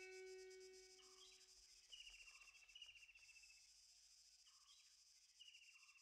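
Near silence: faint cricket chirping, a pulsing high hiss with short falling chirps about once a second, while a held instrument note fades out in the first two seconds.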